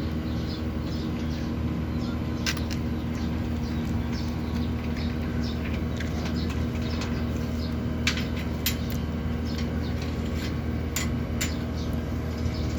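Split-type air conditioner's outdoor unit running with a steady hum, with a few sharp clicks.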